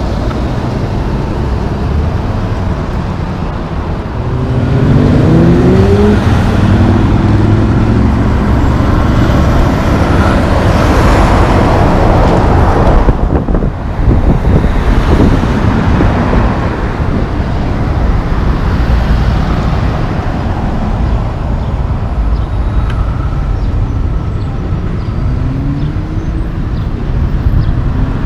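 Heavy diesel tractor-trailer pulling a tanker, its engine note rising as it accelerates about five seconds in and again near the end. Road traffic and tyre noise run under it throughout.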